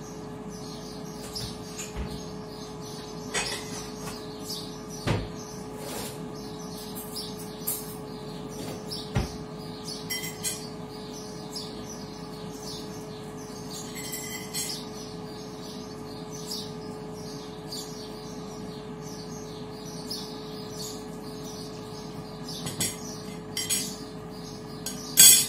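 Birds chirping again and again over the steady hum of an air fryer running, with a few sharp clinks of dishes and cutlery, the loudest near the end.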